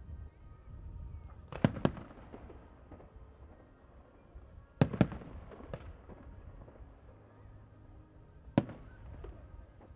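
Aerial fireworks shells bursting: a pair of sharp bangs a couple of seconds in, another pair about five seconds in and a single bang near the end, each with a short echo and fainter pops between.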